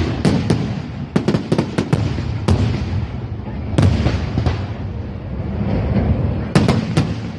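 Fireworks going off: a rapid string of sharp cracks and pops over low booming, in clusters, with a second burst of crackling near the end.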